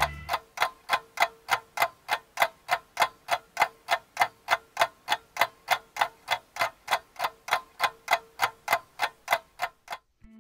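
Clock ticking sound effect: fast, even ticks at about four a second, over a faint steady tone. The ticking stops just before the end.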